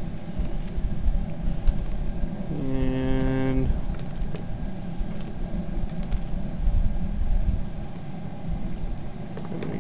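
Steady low roar of a propane burner under a kettle of boiling wort as a paddle stirs it into a whirlpool, with crickets chirping at about two chirps a second. About three seconds in, a one-second steady hum.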